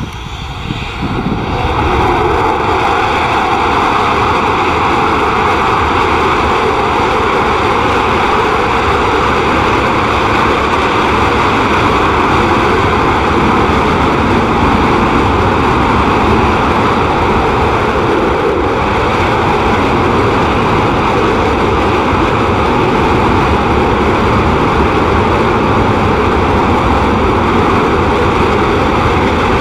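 Panavia Tornado jet engines running loud and steady, building up over the first couple of seconds and then holding an even roar with a faint whine in it.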